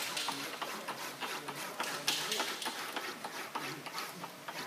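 Aluminum sheet being rolled back and forth through an English wheel, planishing a lump out flat, with irregular light ticks and clicks from the sheet and wheels.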